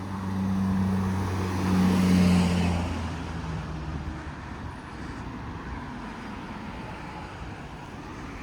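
A passing vehicle's motor hum that swells to its loudest about two seconds in and dies away by three seconds, leaving a steady background rumble.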